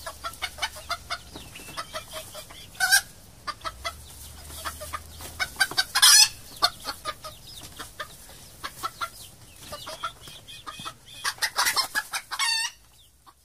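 Domestic chickens clucking in a run, many short clucks with several louder calls scattered through.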